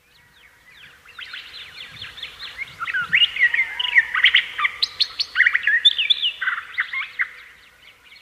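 Birds chirping in many quick, overlapping calls and trills. They fade in, are loudest in the middle and thin out near the end.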